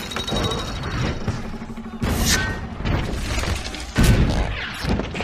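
Film battle sound mix of cannon fire: two heavy booms about two seconds apart, over music and mechanical clatter.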